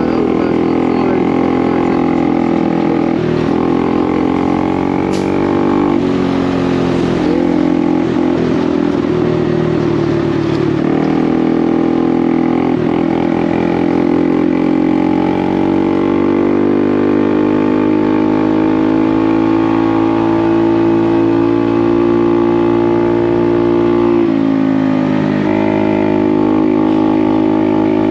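Honda Navi's 109 cc single-cylinder engine running under way, a steady droning note that drops and picks up again several times as the throttle is eased and opened.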